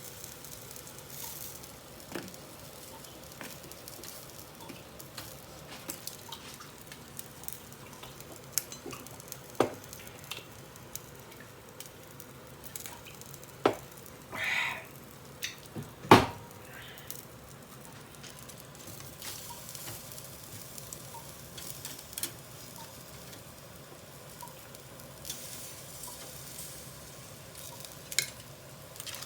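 Yakitori skewers sizzling on an Iwatani tabletop cassette-gas grill, a steady fizz with small ticking pops. A few sharp louder clicks come through the middle, with a short hiss about halfway.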